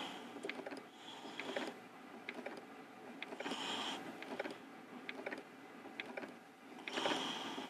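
Leica Jung 820 Histocut rotary microtome being turned by hand at its flywheel, cutting sections from a paraffin block into a ribbon. It gives faint mechanical clicks, with a soft hiss that swells and fades four times.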